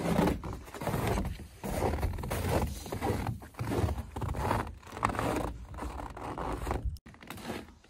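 Footsteps crunching on packed snow at a walking pace, about two steps a second, over a low rumble of wind on the microphone.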